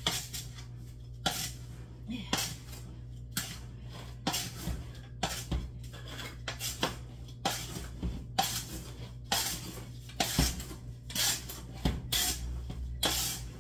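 Wooden spoon stirring dry powdered drink mix in a large metal stockpot, scraping the powder and the pot about once a second in uneven strokes.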